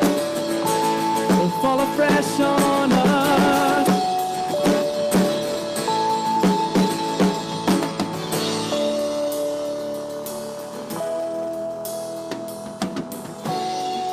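Live worship band playing: acoustic guitar, drums and keyboard with long held notes, and a little singing. The drumming thins out and the music gets quieter in the second half.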